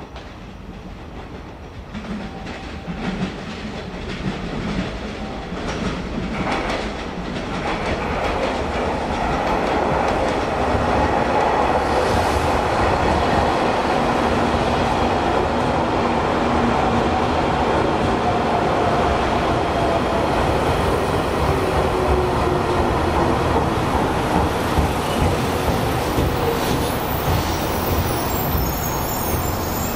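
A JR Shikoku limited express train arriving at a station platform. Its rumble grows louder over the first ten seconds or so as it approaches, then the wheels clatter over the rail joints as the cars run past, with a whine that falls slowly in pitch as it slows.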